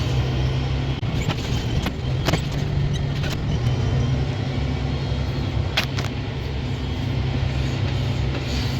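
Tractor engine running steadily under a low drone, with a few sharp clicks and clanks, a handful of them scattered through.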